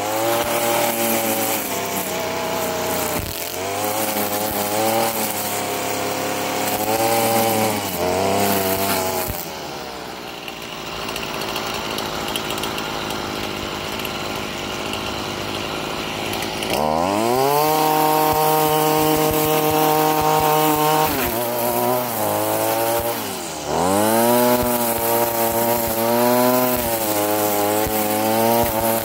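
Stihl FS38 string trimmer's 27.2 cc two-stroke engine running, its throttle opened and eased off again and again so the engine note keeps rising and falling. About a third of the way in the note turns rough and unsteady for several seconds, then it jumps to a steady high rev, dips briefly and goes on rising and falling.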